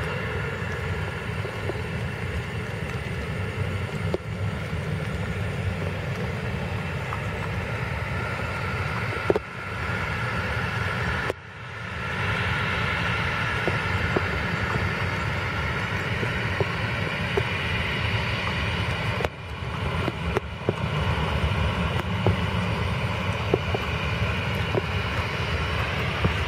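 Boeing 737 jet engines running on the runway: a steady turbofan rumble with a high whine over it, broken off abruptly and restarting several times.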